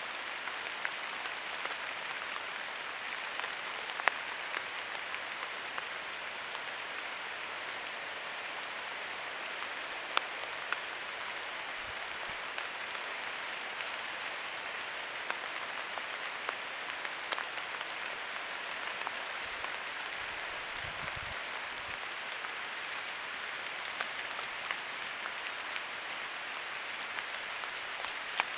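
Steady, even hiss with scattered faint ticks, and a short low rumble about twenty seconds in.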